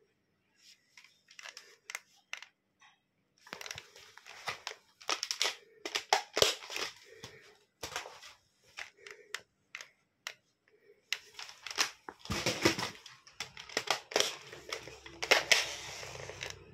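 Handling of a spring-powered airsoft AK rifle: irregular clicks, knocks and rattles of its plastic parts and magazine, mixed with rustling, in busy clusters with short pauses between them.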